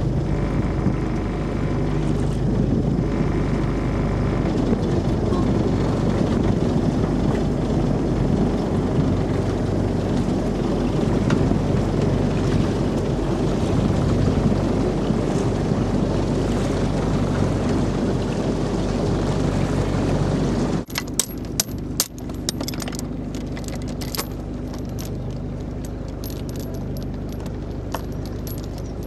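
Motorboat engine running steadily under way, with a steady rushing noise over it. About 21 seconds in the sound breaks off abruptly into a quieter steady hum with scattered sharp clicks.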